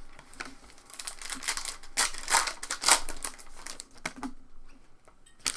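Trading-card pack wrappers crinkling and cards rustling as packs are handled and cards flipped through, in a run of quick sharp crackles.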